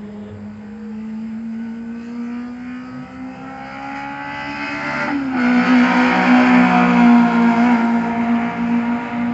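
Nissan March K11's four-cylinder engine pulling under throttle, its pitch climbing steadily. About five seconds in, the pitch drops slightly and the engine gets much louder, then holds steady at high revs.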